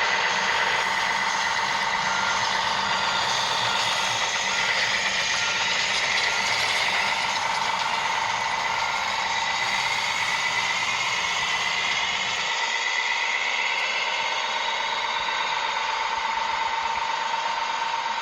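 Small electric motors and gearboxes of radio-controlled construction models whining, with one steady tone and a higher whine that slides up and down in pitch. A low hum underneath drops out about two-thirds of the way through.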